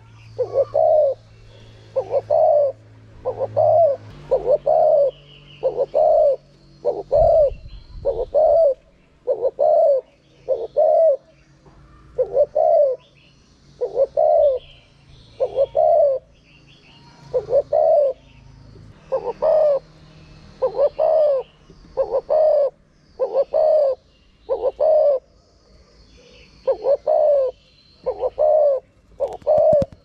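Spotted dove cooing: a caged decoy bird giving its repeated low coos, about one a second in runs of two or three, with faint high chirps of small birds behind.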